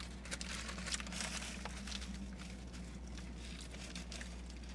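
Paper food wrapper of an Egg McMuffin crinkling as it is unwrapped by hand, in scattered small crackles, over a steady low hum.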